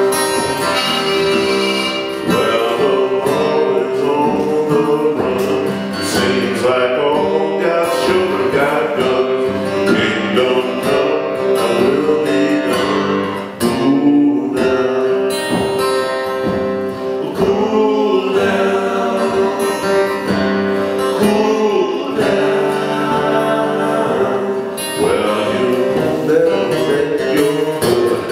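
Acoustic Piedmont-style blues duo playing: acoustic guitar picking along with a blues harmonica that holds long notes and bends them.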